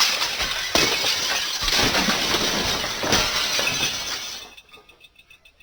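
A long, loud crash of breaking and clattering, dense with many sharp hits, that fades away about four and a half seconds in.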